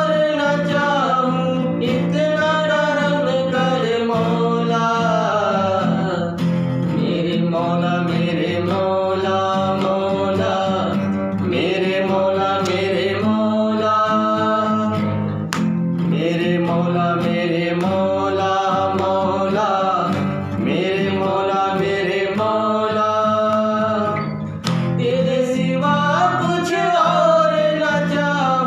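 Music: a male voice singing a gliding devotional melody over instrumental accompaniment.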